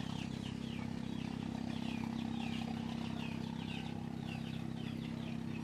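Birds chirping, quick repeated calls several times a second, over a steady low motor hum.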